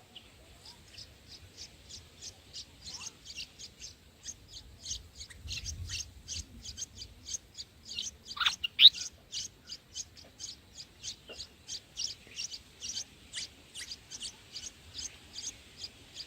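Bulbul chirping: a steady run of short, high chirps at about three to four a second, with one louder call that slides down in pitch a little past the middle.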